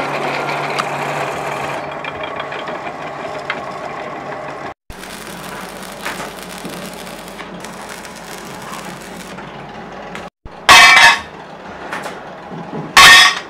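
A drill press runs with a steady hum, boring through stacked steel plates. About five seconds in, it gives way to the crackle of an electric arc welder. Near the end come two loud, ringing metallic clangs from pieces of cut steel, the loudest sounds in the clip.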